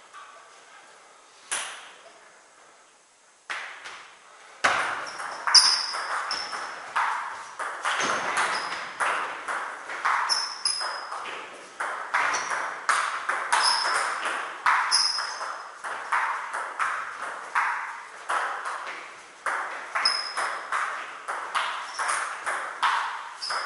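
Table tennis ball in play: two single sharp clicks in the first few seconds, then a long rally of quick clicks of ball on bat and table, about two a second.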